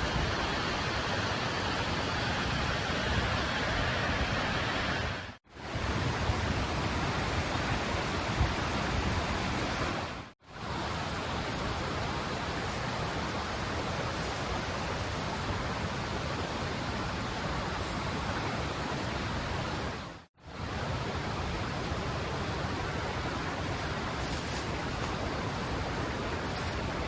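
Steady rushing noise with no clear tone, broken by three short dropouts.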